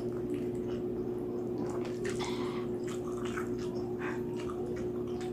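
Close-up wet chewing and lip-smacking of a person eating roast pig's head, a scatter of short smacks and clicks, over a steady low hum.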